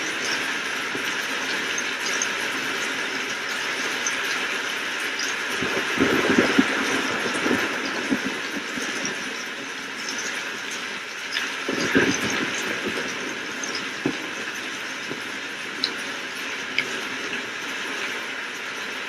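Steady heavy rain hissing, with two short crackling rumbles of thunder, about six seconds in and again about twelve seconds in.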